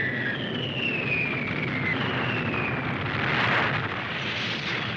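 Falling aerial bombs whistling, three overlapping whistles each sliding down in pitch, over a steady low rumble of detonations. About three seconds in, a bomb explosion breaks out.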